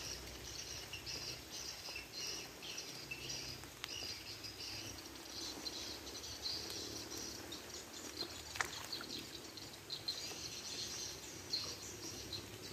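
Birds and insects chirping: high, broken chirps that come and go, with one sharp click about two thirds of the way through.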